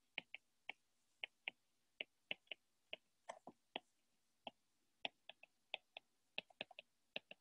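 Stylus tip clicking and tapping on a tablet's glass screen during handwriting: an irregular run of sharp, short clicks, a few each second.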